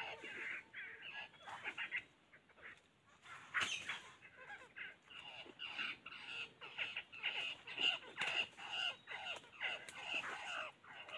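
Birds calling and chattering: many short, quick notes, with a brief lull about two seconds in.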